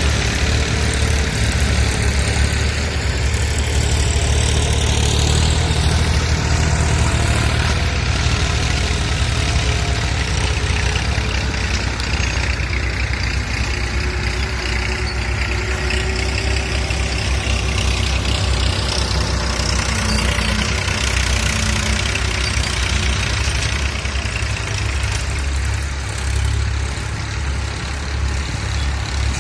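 A heavy engine running steadily with a deep, continuous rumble, typical of machinery at work on an earth embankment.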